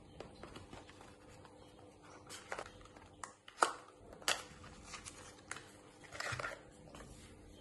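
Light handling noise of small packaging: scattered clicks and taps as a small box is opened and its contents are lifted out. The sharpest clicks come about three and a half and four seconds in.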